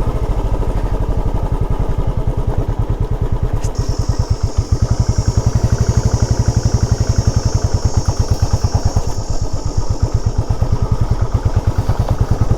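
Motorcycle engine running at low speed with an even, fast firing beat, ridden over a rough, broken off-road track. A steady high-pitched hiss joins about four seconds in.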